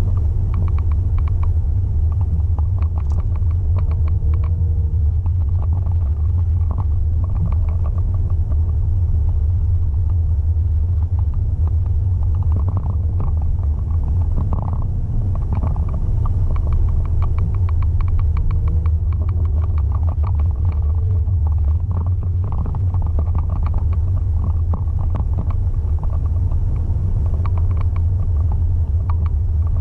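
Steady low rumble of a car's engine and tyres on the road, heard from inside the cabin while the car moves slowly in heavy highway traffic.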